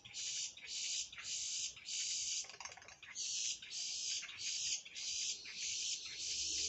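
Boat-tailed grackles calling noisily: a rapid string of short, harsh, high calls, about two a second, repeated over and over.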